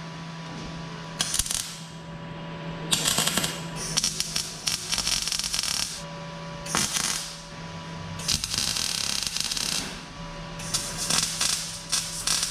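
Electric arc welding on the steel end of a 4x4 front axle housing: five bursts of crackling, sizzling arc, the longest about three seconds. A steady low hum fills the pauses between them.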